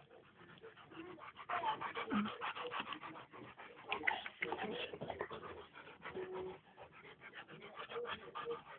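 Two dogs play-fighting at close quarters: scattered short dog noises and scuffling, with a brief whine about six seconds in.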